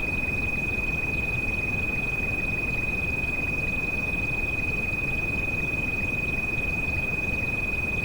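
A single steady high-pitched tone, a tinnitus-therapy frequency, held unbroken over the even hiss of steady rain.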